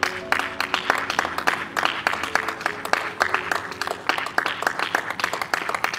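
A small group of people clapping, a dense, uneven patter of claps that runs throughout.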